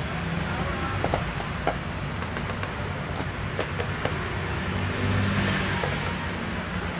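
A steady low background rumble, with scattered light clicks and taps as hands handle a laptop and bring a screwdriver to the screws on its plastic underside.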